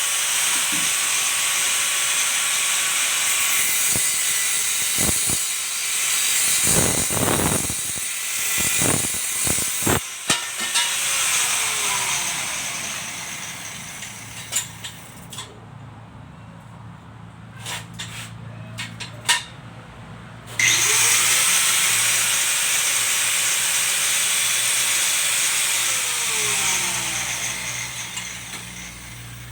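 Angle grinder running on steel. It spins down after about eleven seconds, and metal pieces knock and clank while it is off. It starts again with a rising whine about two-thirds of the way through, and winds down near the end.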